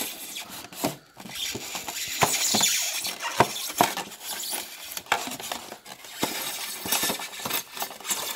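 Utility knife blade scraping along the cut edge of a styrofoam cooler lid, cutting a shallow lip into the foam: an uneven scratching with many sharp clicks and crackles.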